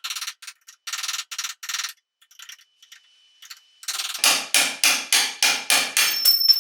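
Hammer striking a steel bolt to drive it out of a truck's lower shock mount, metal on metal. First a flurry of quick lighter taps, a short pause, then about nine heavier blows at roughly four a second with a metallic ring near the end as the bolt gives way.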